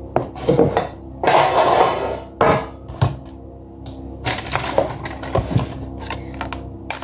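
Kitchen clatter: a bowl and a metal baking tin knocked and shifted on a worktop, with sharp knocks and longer stretches of scraping and rustling.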